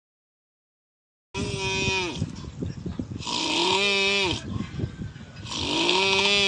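Comedic snoring: three loud, drawn-out snores, each carrying a strong pitched tone that drops away at its end. They start about a second in, after dead silence.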